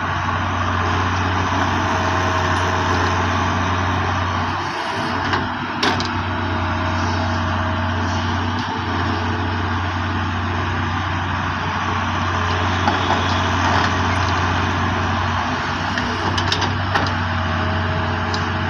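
Heavy diesel engine running steadily under load, with a few short knocks and clatters, about six seconds in and again near the end.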